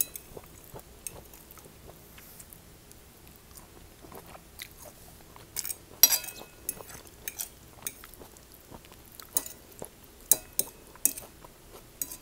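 Chewing and biting on a mouthful of rice noodles and vegetables, with scattered sharp clicks of a metal fork against a ceramic plate, the loudest near the start and about six seconds in.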